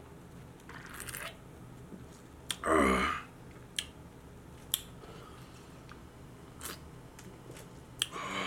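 Drinking from an aluminium drink can, then a short, loud vocal sound from the drinker's throat, falling in pitch, about three seconds in. Light clicks and taps of the can follow now and then.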